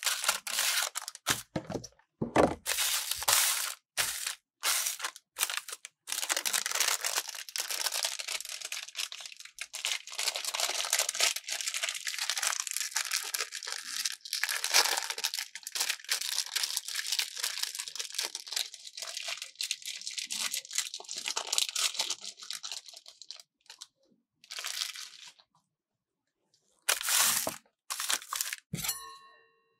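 Plastic wrappers of Magnum Brownie ice cream bars crinkling and tearing as gloved hands peel them open, in close-up. After a short pause near the end, there is another rustle and then a brief metallic ring.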